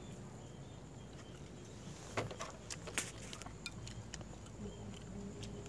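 Chopsticks clicking and tapping now and then against ceramic bowls and plates during a meal, a handful of light sharp clicks in the middle of the stretch, over a faint low background hum.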